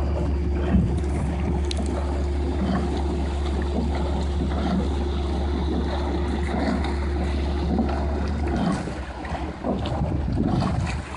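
Outboard motor of a coaching launch running steadily, with wind on the microphone and water noise; the engine note drops away about nine seconds in.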